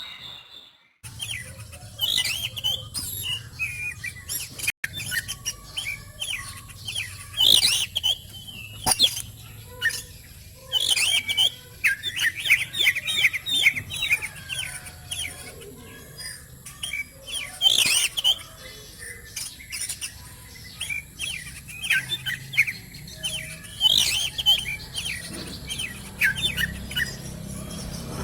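Oriental magpie-robin (kacer) singing a long, varied song of rapid chirps and whistles. Loud, sharp notes break in every few seconds, and the song starts about a second in.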